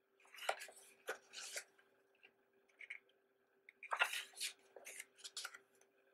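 Pages of a printed program book being turned by hand: two spells of paper rustling and sliding, each lasting about a second and a half, a couple of seconds apart.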